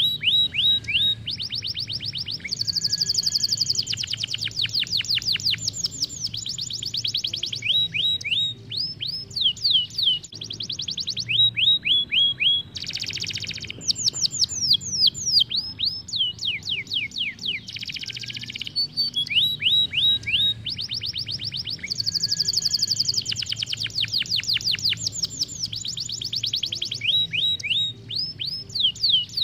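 Isabel canary singing a long, vigorous song of rapid rolling trills, each phrase a fast run of repeated falling notes, switching to a new phrase every few seconds.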